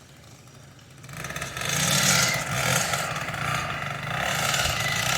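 Small gasoline engine of a motorized bicycle approaching, swelling in loudness from about a second in and running with a wavering pitch.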